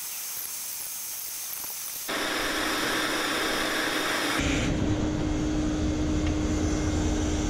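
Homemade turbocharger furnace running with a steady rushing hiss of air and steam. It jumps louder about two seconds in, and a little after four seconds a low rumble and a steady hum join it.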